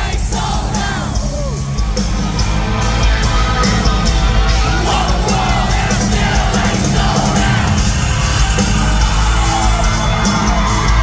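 Live country-rock band playing loud through the arena PA, heard from within the audience on a phone microphone, with heavy bass. The crowd yells and sings along, and the sound grows a little louder about three seconds in.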